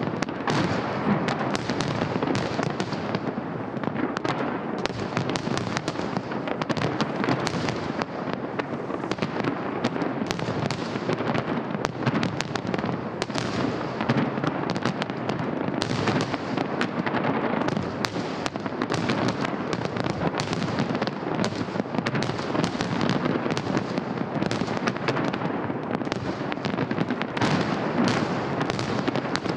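A fireworks salute: shells bursting and crackling in rapid, overlapping succession with no pause.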